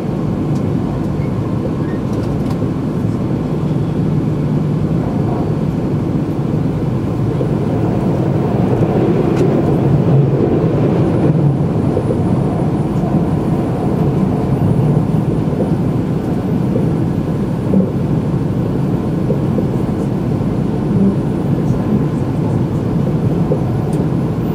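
Steady running rumble of a Nagano Shinkansen train, heard from inside the passenger cabin: wheel and track noise at a constant pace, with one brief louder knock about 18 seconds in.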